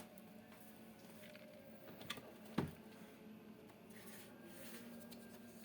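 A few faint clicks and light taps from laptop parts being handled during disassembly, the sharpest about halfway through, over a steady low hum.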